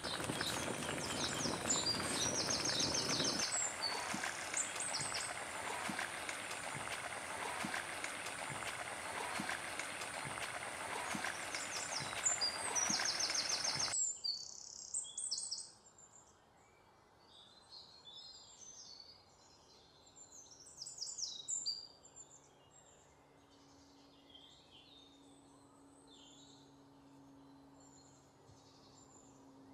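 Coconut-milk stew of spicy fish innards boiling hard in a pot, a dense bubbling and popping hiss, with birds chirping. It cuts off suddenly about halfway through, leaving quiet outdoor ambience with scattered bird chirps.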